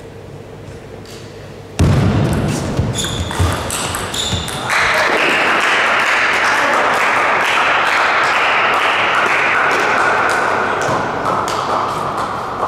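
Table tennis ball clicking in a rally, then about two seconds in spectators break into loud cheering and applause that holds for several seconds and eases off near the end.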